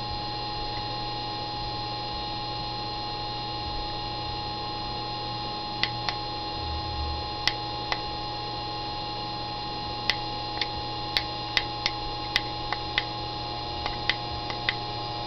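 Small 30 V Globe DC motor with timing-belt pulleys running steadily at full voltage, about 7,000 RPM, with an even hum of several fixed tones. Irregular sharp clicks come in from about six seconds in.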